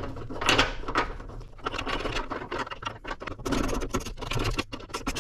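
Irregular small metal scrapes and clicks from hand work on a hood strut mounting bracket: the threaded piece being slid into its groove and a bolt fitted.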